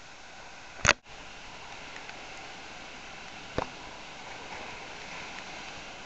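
Steady rushing noise of storm surf and wind on a rocky shore in typhoon conditions. Two sharp clicks cut through it, a loud one about a second in and a weaker one some two and a half seconds later.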